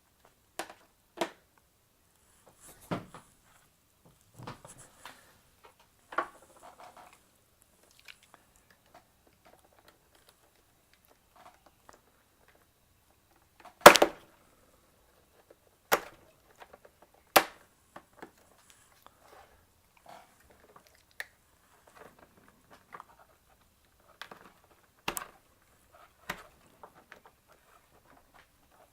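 Scattered sharp clicks and small plastic cracks as a scanner's sensor board, held in by two plastic heat stakes, is worked free; the loudest crack comes about 14 seconds in.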